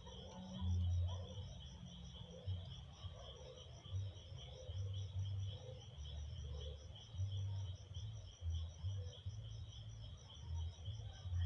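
Crickets chirping in a steady, rapid, high-pitched pulsing trill. Low muffled rumbles on the microphone come and go over it.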